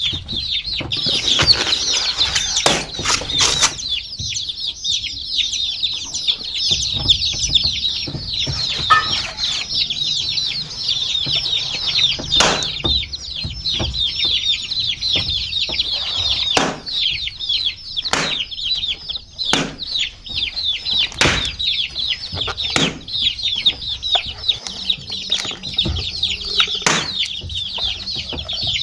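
A group of baby chicks peeping continuously, many short high falling chirps overlapping. Sharp taps or knocks break in a dozen or so times.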